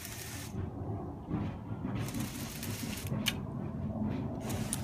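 Radio-controlled Lego Technic crawler crane running on its plastic tracks over concrete: a steady, rough mechanical rattle of tracks, gears and motors, with a few sharp clicks.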